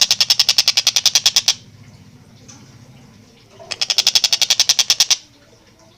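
Collared kingfisher (tengkek buto) giving its loud, rapid 'kek-kek-kek' chatter of about thirteen notes a second, in two long runs: one that stops about a second and a half in, and another from just under four seconds to about five seconds.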